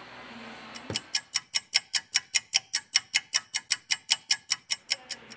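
Clock-ticking sound effect: a steady run of sharp ticks, about six a second, for some four seconds, standing for the three-minute wait while the adhesive remover softens the battery glue.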